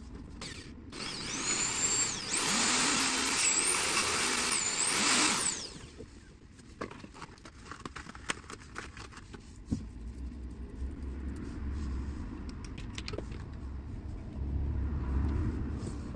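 A motor vehicle passing close by: a rushing noise with a high whine that swells about two seconds in and dies away about three to four seconds later. After it come faint clicks and taps from hand work on the bicycle's front brake.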